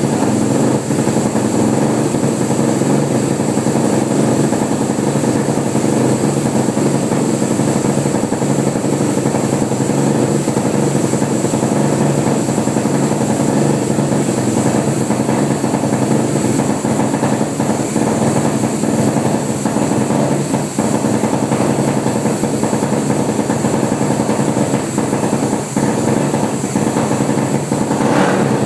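Suzuki LTR450 single-cylinder four-stroke engine running on an engine dyno, loud and at a steady speed.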